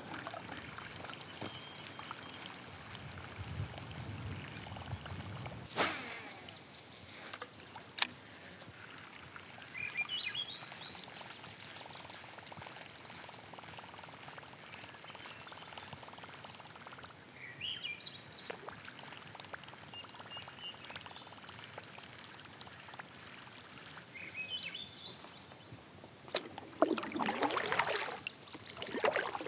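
Kayak on a calm lake: water lapping and trickling against the plastic hull, with a few short bird calls and some sharp clicks. Near the end come paddle strokes through the water.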